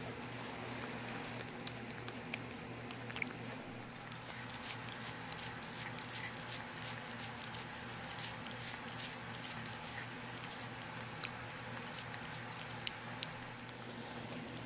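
A cat licking and chewing a pressed catnip ball close up: a steady run of small, quick, soft clicks.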